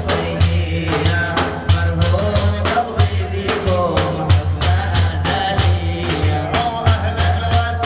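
Arabic devotional praise-song (madih) music: a regular hand-percussion beat over a pulsing bass, with a wavering, ornamented melody line.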